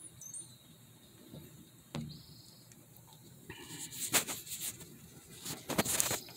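Handling noise from a handheld camera being moved: a run of rustles and knocks starting about halfway through, after a quiet stretch with a faint steady high-pitched whine in the background and a short chirp near the start.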